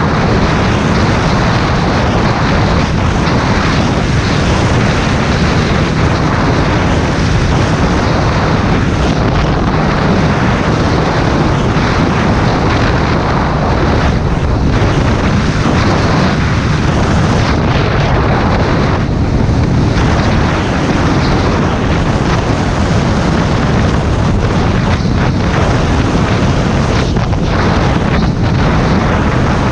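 Heavy wind noise buffeting the microphone of a moving ride-mounted camera, over a steady vehicle rumble and road noise. It stays loud and even throughout.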